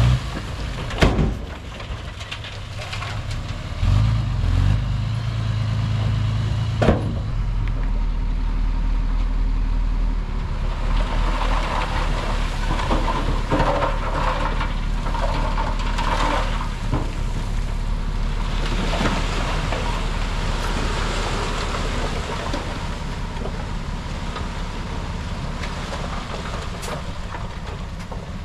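Heavy diesel earthmoving machinery working, its engine running with a steady low drone. There are sharp clanks about a second in and again around seven seconds.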